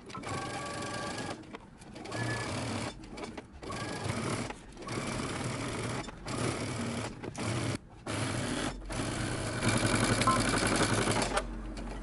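Electric sewing machine stitching a seam in short runs that stop and start again about nine times. The last run is the longest and loudest, with the needle's rapid even stitching rhythm.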